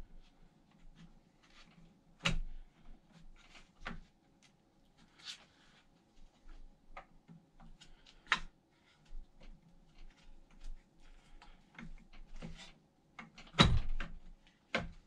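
Scattered clicks and knocks of metal parts being handled and fitted by hand at an e-scooter's rear wheel axle and its mounting plate, with a few sharper knocks and the loudest one about a second and a half before the end.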